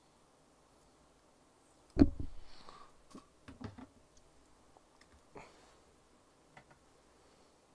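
Plastic Citadel paint pots being handled and set down on a cutting mat: one sharp knock about two seconds in, then a short rattle of lighter plastic clicks and knocks as pots are shifted into place.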